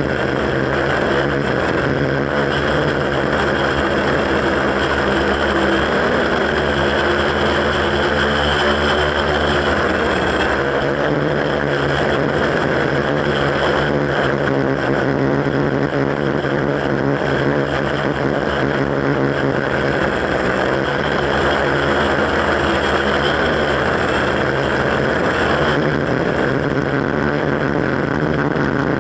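Quadcopter's electric motors and propellers whirring steadily, heard close up from a camera mounted on the frame, the pitch wavering slightly as the craft manoeuvres.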